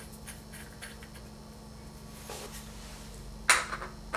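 Light metallic clicks and clinks of a hole saw and washer being fitted onto a drill-bit mandrel by hand, with a louder clank about three and a half seconds in.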